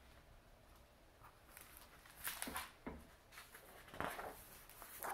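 A few brief, faint rustles and soft taps of a hardcover picture book's paper pages being handled and turned.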